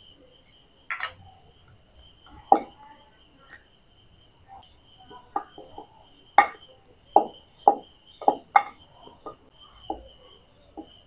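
Wooden rolling pin knocking and clacking on the rolling board as a puri is rolled out with oil: a dozen or so irregular short taps that come quicker in the second half. A steady high cricket chirring runs behind them.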